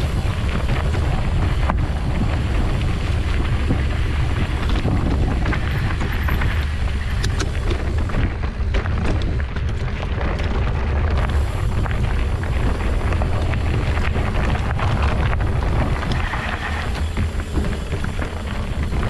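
Wind buffeting a camera microphone while riding a mountain bike on a trail, a steady heavy rumble with occasional sharp clicks and knocks.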